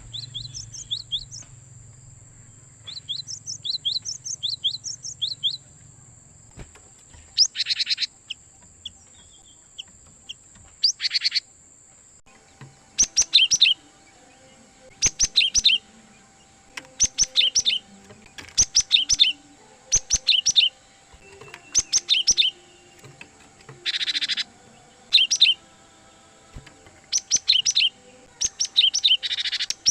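A cinereous tit (gelatik batu) singing: short phrases of quickly repeated high whistled notes, broken by a few louder, harsher chattering bursts.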